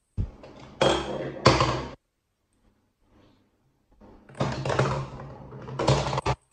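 Hard plastic knocking and rolling from a LeapFrog Peek-A-Shoe octopus toy, in two bursts of about two seconds each; the second comes as a ball is dropped into the octopus's head and runs down through its plastic body.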